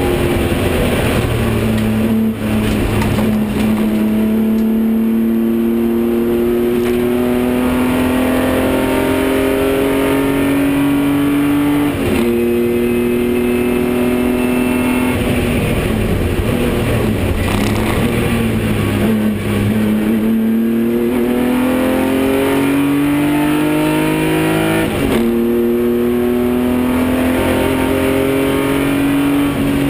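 BMW 325i (E30) straight-six race engine heard from inside the cockpit at full throttle. The engine note climbs steadily through each gear and drops sharply at upshifts about two, twelve and twenty-five seconds in; midway it falls away and then climbs again.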